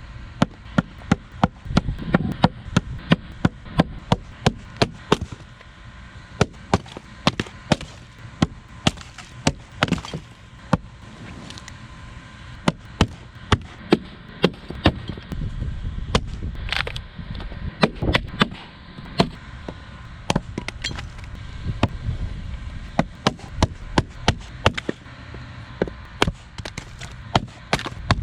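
Log being chopped with a blade: a fast run of sharp, hard strikes into the wood, about two to three a second, broken by a few short pauses.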